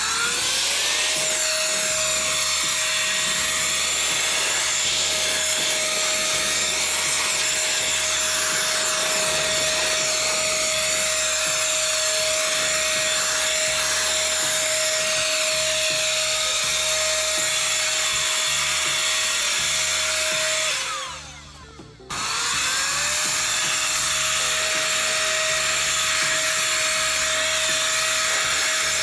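ICANZUO TAD06 cordless air duster blowing at full power: a loud rush of air with a steady high motor whine, spinning up with a rising pitch at the start. About 21 seconds in it is switched off and the whine dies away. About a second later it is switched back on and spins up again.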